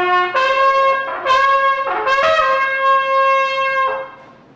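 Trumpet blown in a call of several notes: a short lower note, then three long held notes at one higher pitch, the last held nearly two seconds before it stops about four seconds in.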